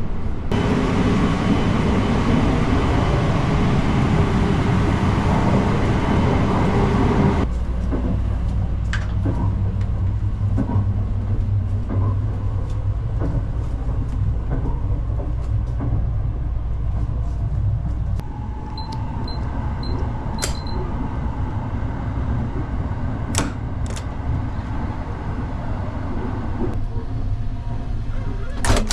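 Running noise of the Sunrise Express sleeper train (a 285-series electric train) heard inside the carriage: a steady rumble and hiss that drops suddenly to a lower rumble about seven seconds in. Four short high beeps sound about two-thirds of the way through, and a door handle clicks near the end.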